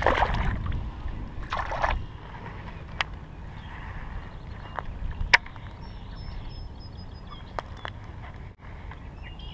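A largemouth bass splashing back into the water as it is released. It is followed by a low steady rumble of wind on the microphone, broken by a few sharp clicks about three and five seconds in.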